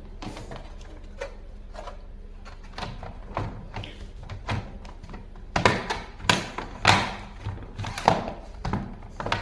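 Light clicks and knocks of a laptop's plastic case being handled and put back together, sparse at first, then louder and about two a second from a little past halfway.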